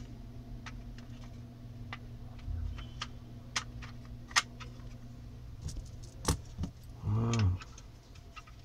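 Plastic housing parts of an Intelbras TDM300 telephone being handled and pressed together: scattered light clicks and taps of hard plastic during reassembly of the shell. A short wordless murmur of a man's voice comes about seven seconds in.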